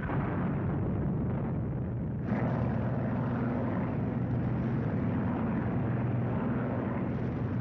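Military vehicle engines droning steadily, a low hum with noise over it that gets fuller and slightly louder about two seconds in.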